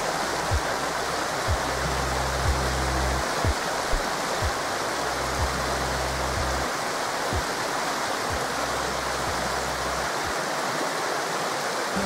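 Forest river water rushing steadily. Under it, soft background music of low held tones and a gentle low pulse about once a second; the low music drops away near the end.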